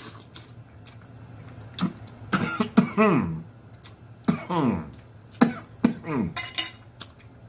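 A man chewing a mouthful of fish with wet mouth clicks and lip smacks, and letting out several short, falling hums of enjoyment as he eats.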